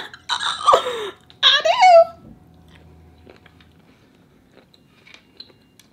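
A woman makes two short vocal exclamations in the first two seconds, then chews seafood quietly, with faint small mouth clicks and smacks.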